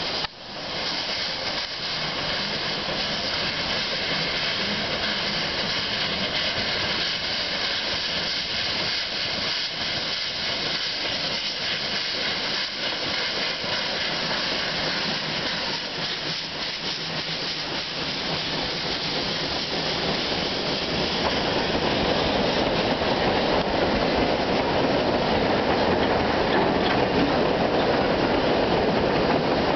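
Puffing Billy's narrow-gauge steam tank locomotive running with a train, its steam hissing steadily. It gets louder about two-thirds of the way through as the carriages rattle past over the trestle.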